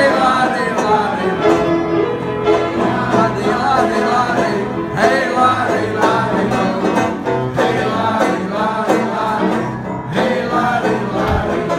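Upright piano and banjo playing a tune together, with singing over them.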